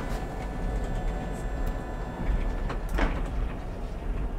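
Oslo tram running along the track, heard from the driver's cab: a steady low rumble of the wheels on the rails with a steady whine over it that cuts out a little under three seconds in, and a short clatter about three seconds in.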